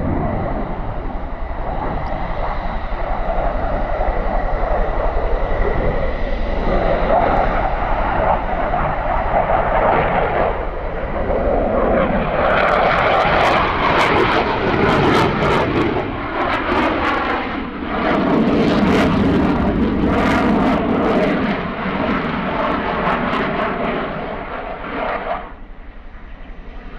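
Saab JAS 39 Gripen's single Volvo RM12 turbofan in a display pass: loud jet noise that swells and shifts in pitch, with a long run of sharp crackles through the middle of the pass. The noise drops off abruptly near the end.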